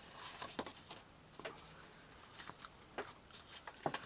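Paper cards and craft pieces being handled: a few short, light rustles and taps at irregular intervals.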